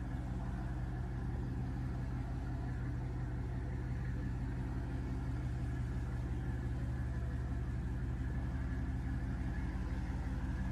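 A large motor yacht's engines running steadily at low revs while it manoeuvres, giving an even, low hum.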